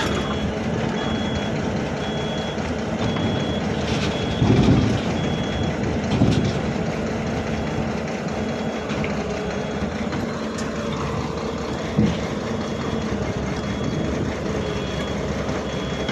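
Excavator's travel alarm beeping about once a second over the steady running of its diesel engine, with two heavy clunks about four and six seconds in.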